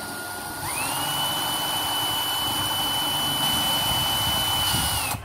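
Ryobi 9.6 V cordless drill-driver run in reverse. The motor whine steps up in pitch within the first second as the trigger is squeezed, holds steady at full speed for about four seconds, then dips slightly and stops.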